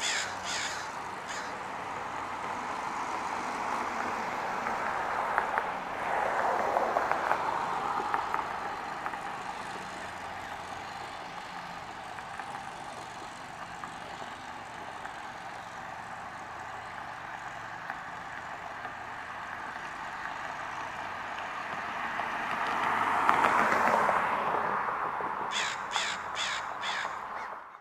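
American crow cawing: a couple of caws at the very start and a quick series of about five caws near the end, over a steady rushing background noise that swells twice.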